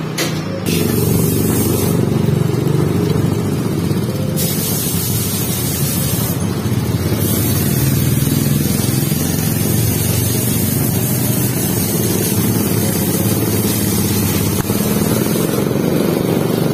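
Motor vehicle engines running in street traffic: a steady low rumble.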